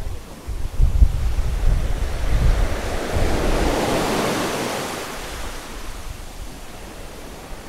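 Sea waves surging against rocks with gusty wind buffeting the microphone; a wave washes in loudly about three seconds in and fades away.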